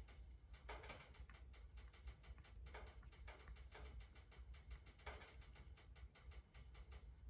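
Near silence: faint, irregular soft clicks and ticks over a low steady hum.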